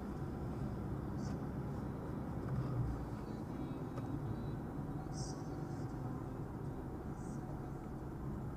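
Car driving on an asphalt road, heard from inside the cabin through a dashcam microphone: a steady low rumble of tyres and engine, with a few brief faint high hisses.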